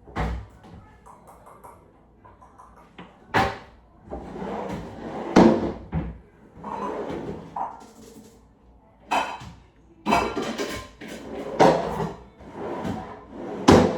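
Kitchen cabinet doors and drawers being opened and shut over and over, with about six sharp knocks as they close and clattering in between.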